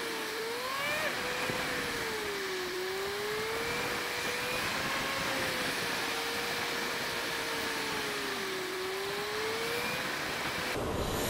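Suzuki Bandit motorcycle's inline-four engine running on the move, its pitch rising and falling gently with the throttle, over a steady rush of wind and wet-road noise.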